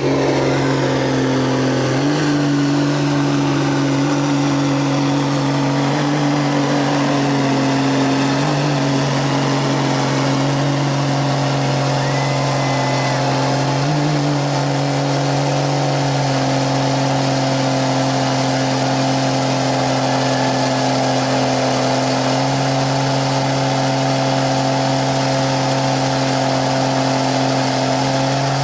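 Mega truck engine held at high revs with the wheels spinning in deep mud while the truck is stuck. The pitch stays nearly steady, with small jumps up and down every few seconds.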